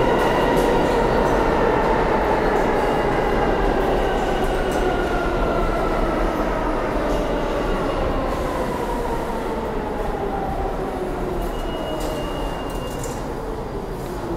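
New York City subway train slowing down: its motor whine falls steadily in pitch over the running rumble of the train, the sign of a train braking into the station.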